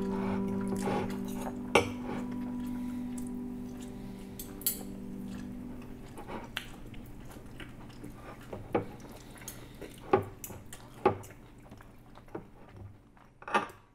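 Knife and fork clinking and scraping against a small plate while cutting a cinnamon bun, with about eight scattered clinks. Held background music chords fade out over the first half.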